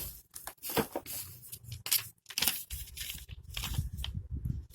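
Handling noise from the product and its packaging: a run of short rustles and crinkles with small knocks, over a low rumble.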